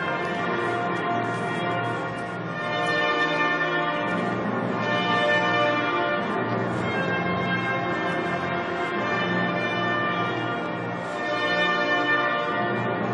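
Loud processional church music of sustained full chords, changing every two seconds or so, with a bright, bell-like ring.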